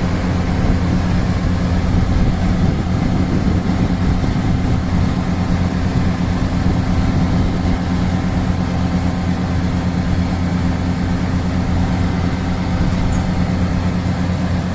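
Heavy diesel engine running steadily with a constant low hum.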